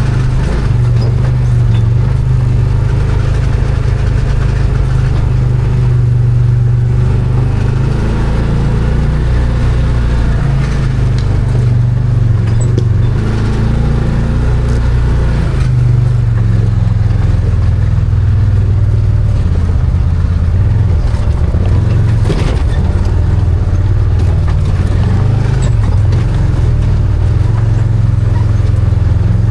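Arctic Cat Wildcat 1000 side-by-side's V-twin engine running under load, its pitch rising and falling with the throttle, with a sharp knock about two-thirds of the way through.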